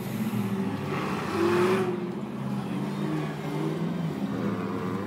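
Ultra4 rock-racing car's engine running and revving unevenly, with a louder surge of revs about one and a half seconds in.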